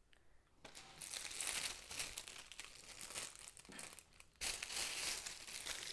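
Plastic piping bag crinkling as it is handled: an irregular rustle that starts just under a second in, breaks off for a moment about four seconds in, then carries on.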